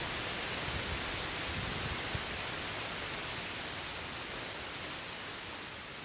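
Waterfall's steady rush of falling water, slowly fading out over the second half.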